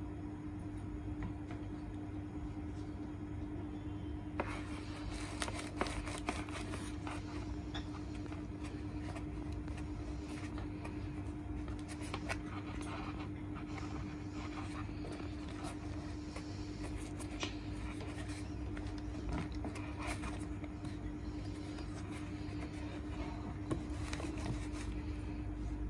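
Hands handling and squeezing a New Balance FuelCell Rebel v2 running shoe close to the microphone: irregular rubbing, scraping and small clicks of fingers on the mesh upper and foam midsole, starting about four seconds in, over a steady low hum.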